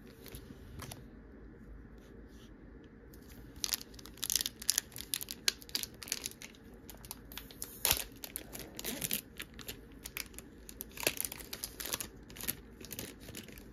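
Foil Pokémon booster pack wrapper being crinkled and torn open, a dense run of crackles starting about three and a half seconds in.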